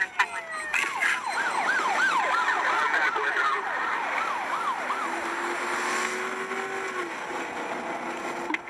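Police car siren in a fast yelp, rising and falling about three times a second, heard from inside a patrol car's cabin over engine and road noise. The yelp runs for about four seconds from a second in, then gives way to a steadier hum of the car.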